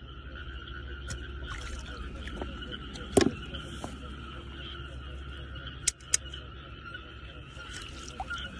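Frogs calling steadily in a night chorus. A sharp knock about three seconds in is the loudest sound, and two short clicks follow around six seconds.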